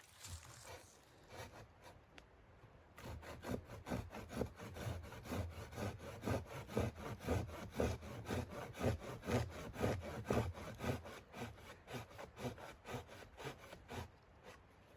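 Hand saw cutting through wood in even back-and-forth strokes, about two a second. The strokes start a few seconds in and stop near the end.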